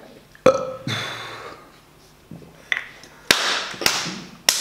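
A person gulping down a glass of drink in slow, strained swallows. About five sharp clicks, most followed by a noisy breath out.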